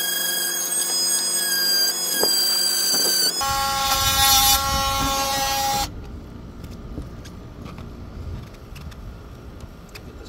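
A loud, steady mechanical whine of several held tones that stops abruptly a little over halfway through. After that, quieter faint clicks and scrapes of a hand tool on a conduit fitting.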